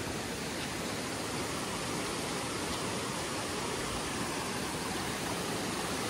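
Steady rush of water from a rocky mountain stream.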